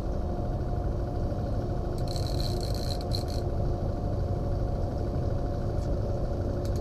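Small kicker outboard running steadily at trolling speed. About two seconds in, a fishing reel's clicker buzzes for about a second and a half as the hooked salmon takes line.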